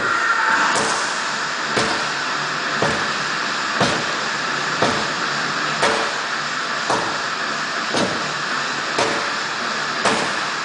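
Sledgehammer strikes, one about every second in a steady rhythm, each a sharp thud.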